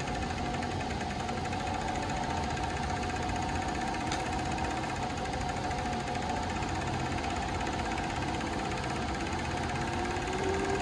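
JUKI MF-7923 industrial three-needle coverstitch machine running steadily at speed while stitching knit fabric. It makes a constant mechanical hum with a steady pitched tone from its servo motor, and a second, lower tone joins near the end.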